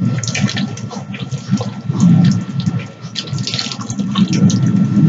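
Close-miked wet chewing of cheesy noodles, with smacking mouth sounds that come in irregular bursts.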